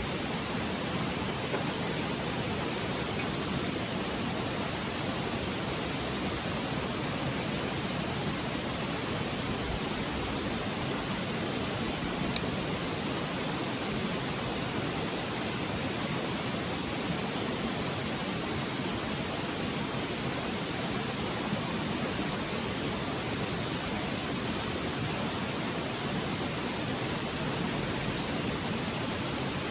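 Petromax HK500 kerosene pressure lantern burning with a steady hiss, with one faint click near the middle.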